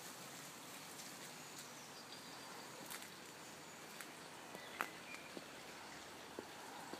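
Quiet outdoor background with a few faint clicks and rustles from a boxer dog moving through garden shrubs, the loudest click almost five seconds in.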